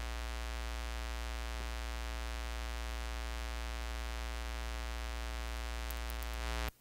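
Steady electrical hum and hiss on an open telephone line, with no other change until it cuts off suddenly just before the end.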